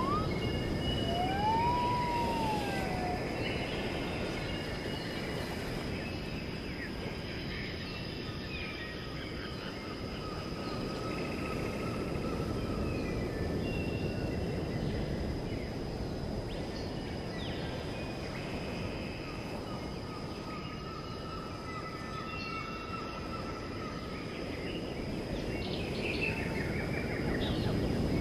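Outdoor woodland ambience: birds chirping and calling over a steady rushing background noise, with a thin, steady high-pitched tone. A clear whistled call rises and falls about two seconds in.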